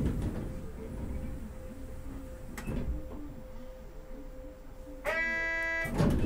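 Inside a Sapporo M100-class streetcar standing at a stop: a quiet spell with a faint steady hum. About five seconds in, a single electronic signal tone with a buzzing, many-overtone sound is held for just under a second. Louder running noise from the car returns near the end.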